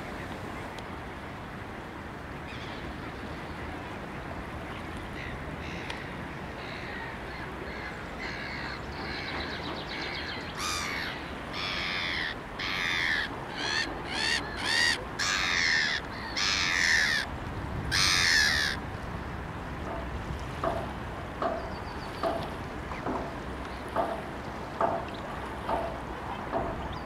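Hooded crow cawing: a series of harsh caws roughly one a second, starting faint and growing loud about ten seconds in, then fainter short calls near the end. A steady outdoor hiss of wind and water lies underneath.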